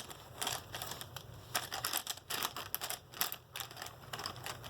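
Irregular light clicks and clatter of pens and pencils being handled and taken out of a pencil pouch.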